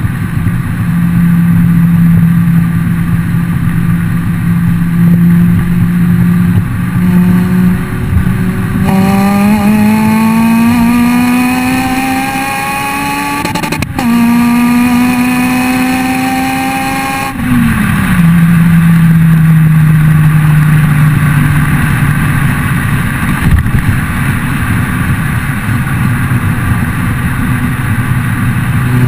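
Honda Civic EP3 Type R 2.0-litre four-cylinder through a Fujitsubo RM-01A cat-back exhaust with decat, holding a steady drone, then accelerating hard about nine seconds in with the pitch climbing. A single sharp crack comes with a quick upshift about halfway through, the revs climb again, and on lift-off the note drops suddenly and eases back to a steady drone.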